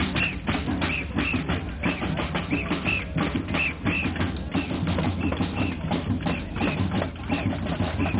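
Drums playing a quick, even beat with bass and snare drum strokes, in the manner of a street drumming group.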